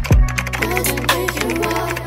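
Background R&B song: a deep bass drum hit that falls in pitch at the start, a held bass note under it, and a sung vocal line coming in about half a second in.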